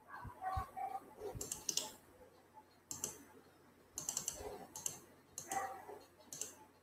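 Computer keyboard clicking in short, irregular bursts of keystrokes, fairly faint.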